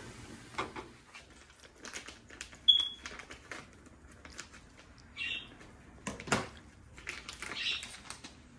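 Crinkling and rustling of a plastic pouch of pinole as it is handled and opened, with scattered light clicks and a brief high squeak about three seconds in.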